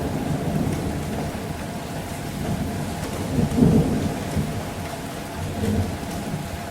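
Steady rain falling in a city with rolling thunder rumbling low, swelling loudest about halfway through and again more softly near the end.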